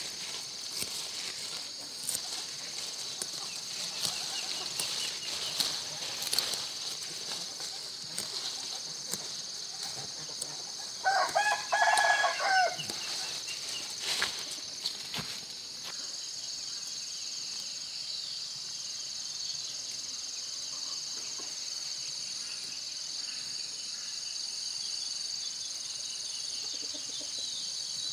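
A rooster crows once, starting about eleven seconds in, over a steady high-pitched insect chorus. A few sharp clicks come and go in the first half.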